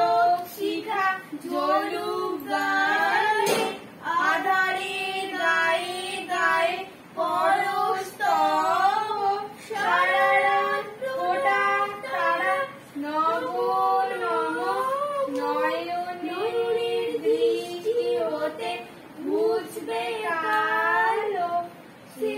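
A girl and a woman singing a song together, unaccompanied, in long held notes with short pauses between lines.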